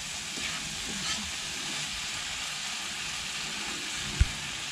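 Saime beans, shrimp and potato sizzling steadily in a frying pan while being stirred with a spoon, with faint scrapes of the spoon. A single low thump about four seconds in.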